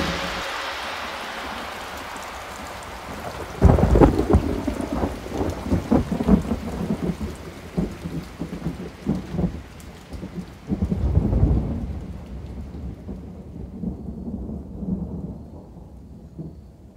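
Heavy rain with thunder: a sudden loud thunderclap about three and a half seconds in, rolling rumbles after it and a second swell of thunder around the middle, then the storm fades away.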